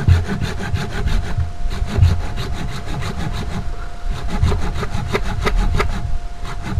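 Curved blade scraping rapidly along the woody base of a serut (Streblus asper) bonsai stock, several quick rasping strokes a second, stripping away dead bark and root tissue whose root hairs no longer work.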